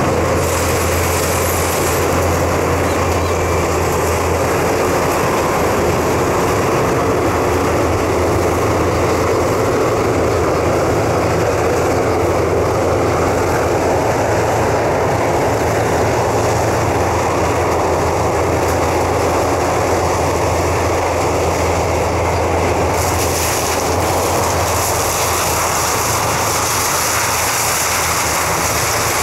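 Sugarcane harvester at work, its engine running under load as it cuts and chops cane, with a tractor alongside: a loud, steady drone with a strong low hum. A brighter hiss joins about three-quarters of the way through.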